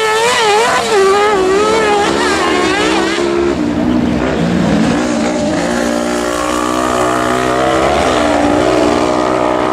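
Racing buggy's engine revving hard on a dirt track, its pitch rising and falling with the throttle through the bends, dropping about three seconds in, then climbing steadily as it accelerates.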